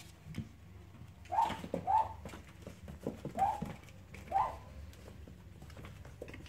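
Young Cavalier King Charles Spaniel puppies play-fighting: four short, high yips in the first half, with light scuffling and knocks around them.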